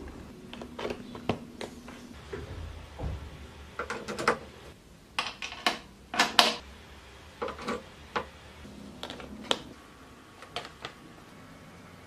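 Irregular sharp clicks and knocks over a low hum, the loudest about six seconds in: handling noise from a jack plug being worked into an archtop electric guitar's output jack.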